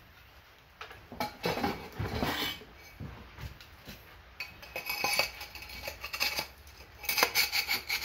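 Scraping, rubbing and light clinking as the spare parts of an electric melting furnace, a ribbed metal heating coil and its white insulated chamber sleeve, are handled and fitted together. The noises come in irregular bunches, with a quick run of clicks near the end.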